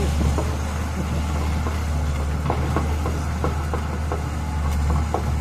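Heavy diesel engine running steadily at low revs, a deep constant drone, with a few faint short knocks about halfway through.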